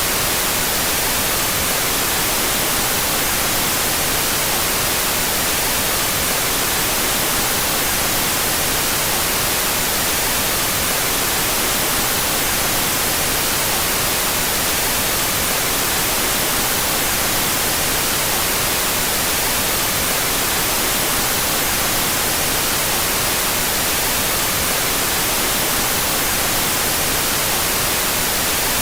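Steady, unchanging white noise: a full hiss across the whole range with no breaks or variation, its two stereo channels set out of phase with each other.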